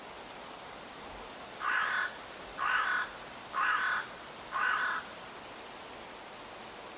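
A bird gives four short calls about a second apart, over a steady rushing background hiss.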